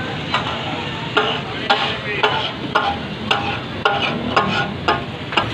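Metal spatulas striking and chopping on a large flat griddle (tawa), about two clacks a second, over the steady sizzle of meat frying: the rhythmic clatter that gives kata-kat (tak-a-tak) its name.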